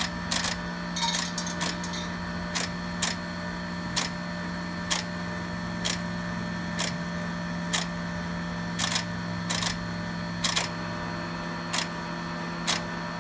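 Pro-Cut on-car brake lathe running with a steady hum, with sharp clicks about once a second, irregularly spaced, during its automatic runout compensation before the cut.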